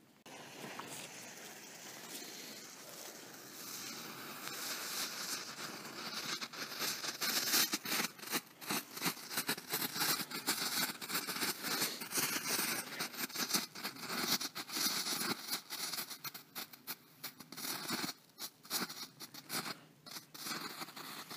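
A small Category 1 ground fountain firework burning. A hiss starts suddenly and builds over the first several seconds, then turns to dense crackling from about seven seconds in, which thins out near the end.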